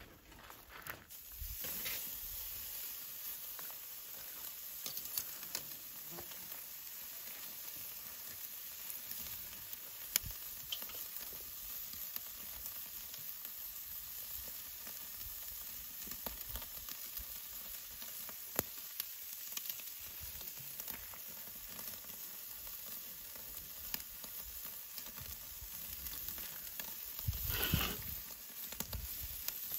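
Food sizzling steadily as it cooks, with scattered sharp pops and crackles. The sizzle comes up about two seconds in, and a brief louder burst comes near the end.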